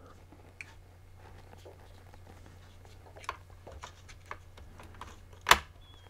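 Light clicks and taps of a metal hard-drive bracket being handled and tried against a 3.5-inch hard drive in a plastic set-top box case, with one sharp click about five and a half seconds in. A faint steady low hum runs underneath.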